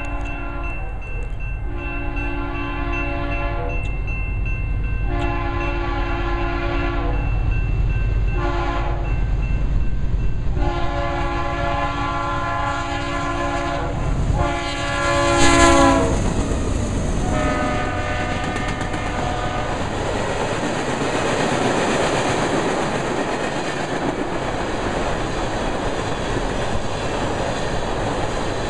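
Three Union Pacific GE Dash 9 (C44-9W) diesel locomotives approach and pass, sounding a multi-note horn six times, the first four in the long, long, short, long grade-crossing pattern, over a low engine rumble. The sound peaks as the locomotives go by about 15 seconds in, and the horn's pitch drops. Tank cars then roll past with steady wheel-on-rail noise and clickety-clack.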